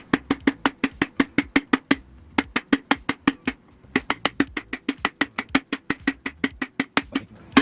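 Rapid, even knocking, about five sharp strikes a second, with a short break about halfway through.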